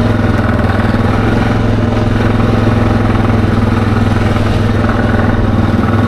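ATV engine running at a steady pace while riding along a road: an even, constant engine drone with no revving.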